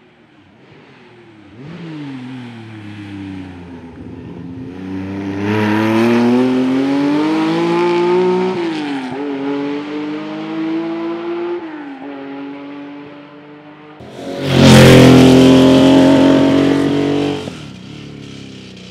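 Hill-climb race car engine revving hard, its pitch climbing and then dropping sharply at upshifts about nine and twelve seconds in. After a lull, a much louder race car engine bursts in at full revs near the end and fades away as it goes past.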